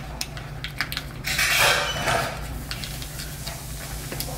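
Pre-workout powder being stirred into water in a glass mason jar, the stirrer tapping and clinking against the glass, with a short loud hiss of noise about a second and a half in.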